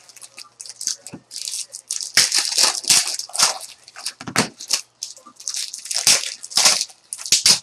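Trading-card pack wrappers crinkling as baseball card packs are opened and handled, in a quick, irregular run of short rustles.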